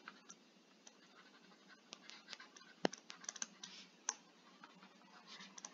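A stylus faintly tapping and scratching on a tablet screen during handwriting, as a string of light irregular clicks and short scratches.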